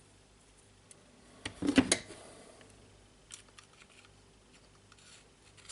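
A short clatter of clicks and knocks about a second and a half in, with a few lighter ticks later, from handling a jigsaw's housing and blade-guide spring while working the spring end into its slot.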